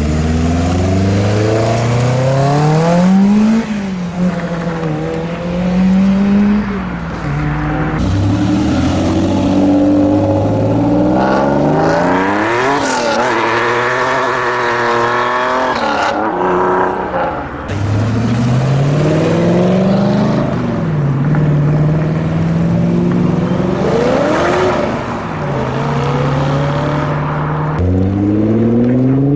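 A string of cars accelerating hard away one after another. Each engine climbs in pitch and drops back at every upshift, about seven runs in all. It opens with a Caterham Seven-style roadster, and near the end a Nissan GT-R's twin-turbo V6 begins pulling away.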